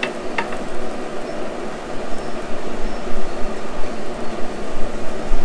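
Grease fire burning in the firepot of a Recteq RT-B380 Bullseye pellet grill: a steady rushing noise from the flames. Two light clicks come right at the start.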